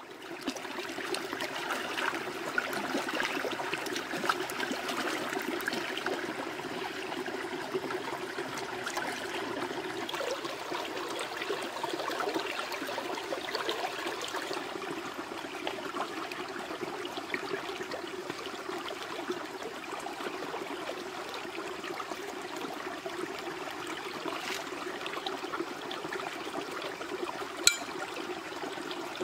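Shallow rocky stream flowing steadily over stones. Light clicks and taps of a knife working a fish on a flat stone, with one sharp click near the end.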